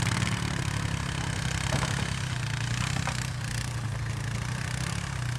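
Four-wheeler (ATV) engine running steadily, a constant low hum under rattling, road-like noise.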